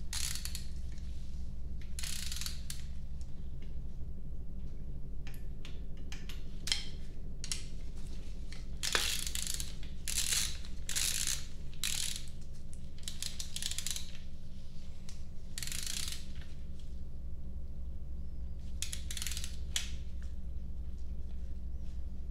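Socket ratchet wrench clicking in short quick runs as it turns bolts down, again and again with pauses, over a steady low hum. The bolts being run down hold the timing chain tensioner.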